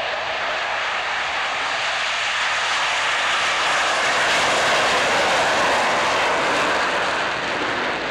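Blue Angels F/A-18 Hornet jets flying past with a continuous jet roar that builds to its loudest around the middle and eases near the end.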